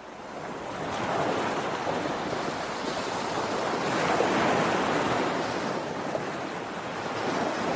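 A steady rushing, water-like noise that fades in over the first second and swells a little about four seconds in.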